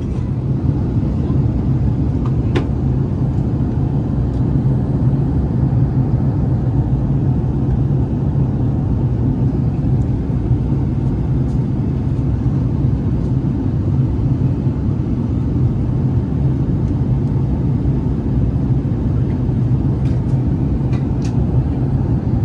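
Steady low rumble of airliner cabin noise inside an Airbus A380, engines and airflow running evenly, with a few faint clicks about two seconds in and near the end.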